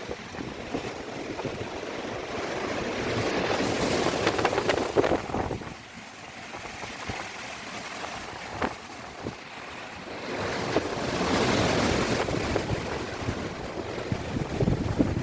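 Heavy wind of about 68 km/h gusting and buffeting the microphone: a noisy rush with crackles of buffeting. It swells over the first few seconds, drops off about six seconds in, and rises again a little after ten seconds.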